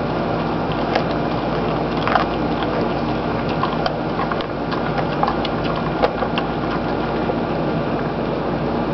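A dog chewing a frozen whole guinea pig: irregular crunching and clicking of teeth on frozen flesh and bone, a few louder crunches among them. A steady hiss runs underneath.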